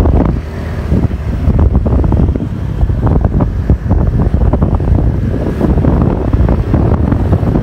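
Wind buffeting the microphone: a loud, uneven low rumble in gusts.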